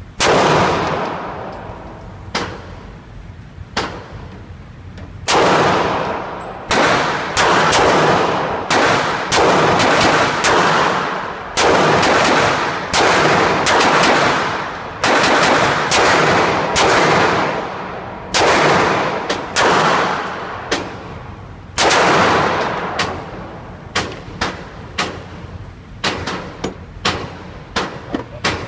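Glock 19 Gen 4 9mm pistol firing 115-grain Blazer Brass rounds in a long string of shots, each followed by a long fading echo. The first few shots are a second or more apart, then they come about two a second.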